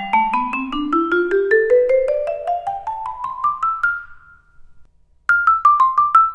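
Marimba One One Vibe vibraphone played pedal up, its felt damper cutting each note short. A quick rising scale climbs from the lowest bar to the highest. About five seconds in, a short figure follows in the top octave, and its last high note rings on briefly.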